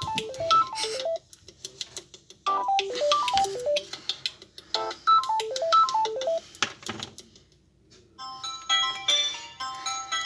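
Samsung Galaxy A12 ringtones: a bright melodic tone of quick runs of notes, its phrase repeated three times, stops about seven seconds in; after a second's pause a different tone starts with several notes sounding together.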